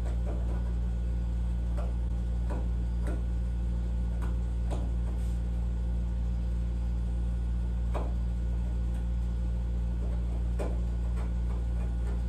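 Light irregular ticks and scratches of a metal scribe marking weather stripping on a car's deck lid, over a steady low hum.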